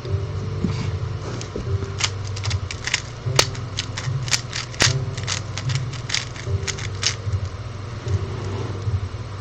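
Rubik's Cube being turned fast by hand: a quick run of plastic clicks and clacks, densest from about two seconds in until near seven seconds, with scattered clicks around it.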